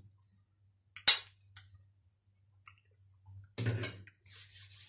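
A person eating a spoonful of githeri from a metal spoon: one sharp click about a second in, then a brief vocal sound and soft chewing and breathing noises near the end.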